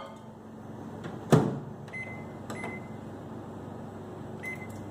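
Microwave oven door shut with a thud, then its keypad beeping as it is set to 30 seconds on high: two short beeps about half a second apart, and another near the end.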